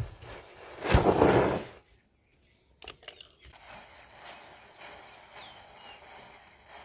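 Firecrackers going off as a burning chain of matchsticks reaches them: a sharp pop at the start, then a louder bang with a short rush of noise about a second in. After that, a quiet outdoor background with one short falling bird chirp.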